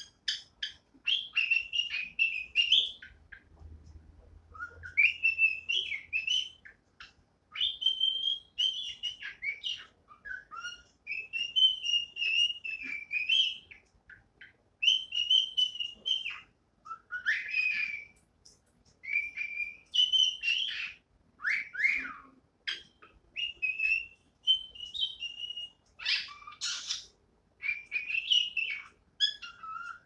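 Cockatiel singing: a string of warbling whistled phrases, each a second or two long, broken by short pauses, with a few quick chirps at the start.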